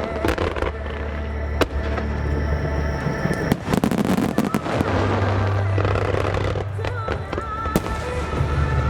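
Aerial fireworks bursting in rapid succession, with many sharp bangs and crackles over a continuous low rumble.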